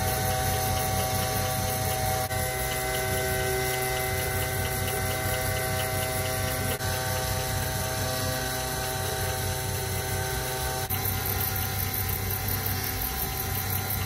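Spindle motor of a Banglemaster B12 jewelry CNC milling machine running steadily while a 3 mm 130° Posalux diamond-cut tool cuts a pattern into a face of an octagonal ring: a steady hum with several whining tones, whose mix changes abruptly a few times.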